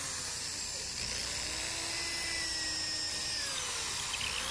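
Electric drill running steadily with a whine, boring a hole through a small wooden board.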